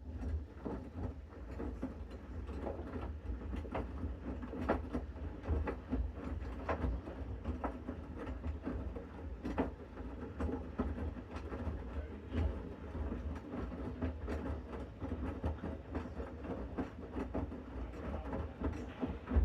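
Bosch Series 6 washing machine in its main wash, the drum starting to turn at the outset and then tumbling the laundry, a steady rumble with irregular soft knocks and sloshing.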